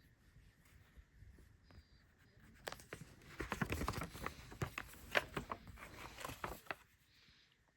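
Packaging of a DVD box set being handled: a run of clicks and crinkling that starts about three seconds in and stops after about four seconds.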